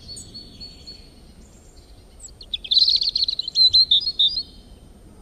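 Small songbird chirping: a thin high trill, then from about two and a half seconds in a louder run of quick, sharp chirps that tails off near the end.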